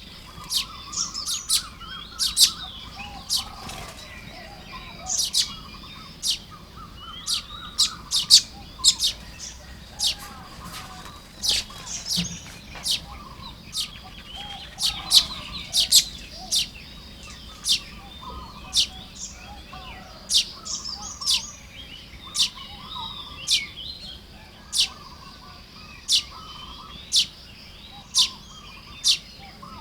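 A flock of baya weavers calling at their nests while building them: many sharp, high chirps about once or twice a second over a continuous lower chattering twitter.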